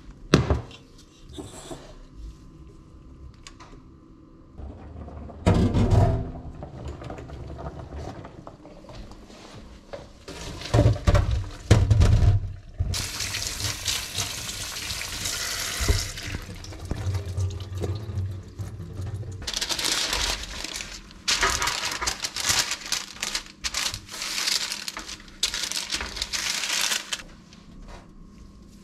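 A kitchen tap runs onto baby potatoes in a mesh strainer in a stainless-steel sink, in two spells: one about halfway through and a longer, broken one later on. Before the water there are several loud knocks and clunks of a steel pot being handled.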